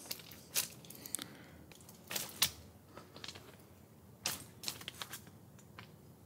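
Footsteps crunching through dry brush and gravel ballast, with dry twigs and stems crackling and snapping in an irregular series of sharp crunches.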